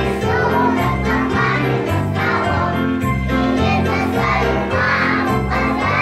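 A group of young children singing a song together over a recorded musical backing track with a steady, repeating bass line.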